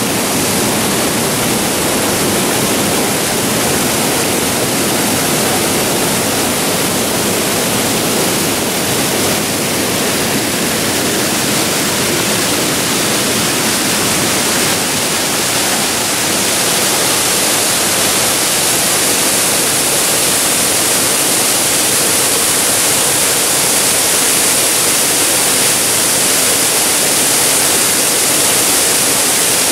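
Waterfall pouring into a plunge pool: a steady, loud rush of falling water.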